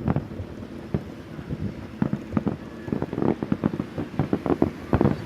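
Starmine fireworks barrage: shell bursts and bangs in rapid succession, packed closer together in the second half, with wind buffeting the microphone.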